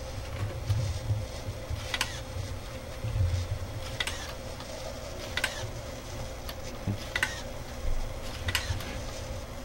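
A small robot's motors and servos working: a steady hum with a sharp click every second or two and occasional low rumbles.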